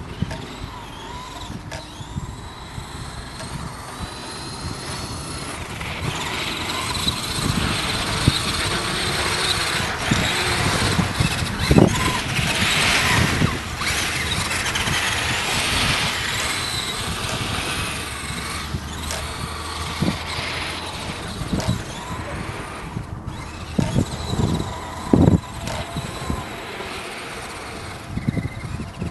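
Traxxas Summit electric RC truck's motor and gears whining, the pitch sliding up and down with the throttle, with tyre and running noise from the snow-covered ice. It is loudest through the middle as the truck comes close, and a few sharp knocks stand out.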